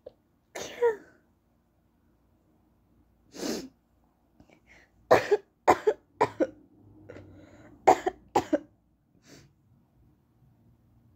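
A woman's high-pitched stifled sneezes: a string of about seven short, sudden bursts, some in quick pairs, over several seconds.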